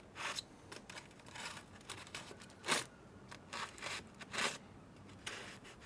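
Aluminium foil crinkling and crackling in about half a dozen short bursts as a thermometer probe is pushed through the foil wrap into the meat to test its tenderness, the loudest burst a little under three seconds in.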